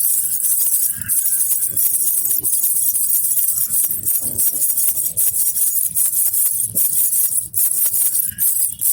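Baby rattle (jhunjhuna) with small jingle bells, shaken continuously: a dense, high-pitched jingling made of many quick little clicks.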